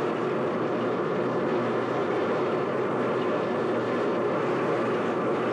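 Metal lathe running steadily while a 2-inch, 82-degree countersink bit cuts a countersink into a one-inch-thick steel plate. It is an even, unbroken machining noise.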